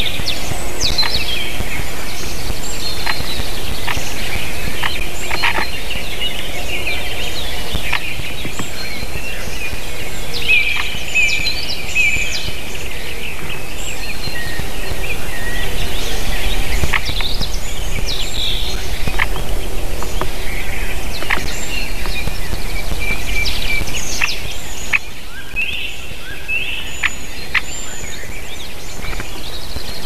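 Several wild birds singing and calling in forest, a busy overlapping mix of short chirps and call phrases, over a steady low rumble of background noise.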